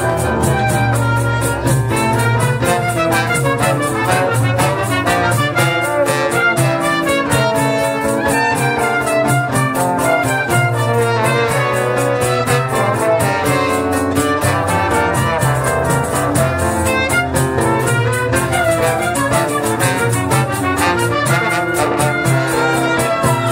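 Live choro ensemble of acoustic guitars and brass (trumpets and trombone) playing a tune, the brass carrying the melody over steady guitar accompaniment.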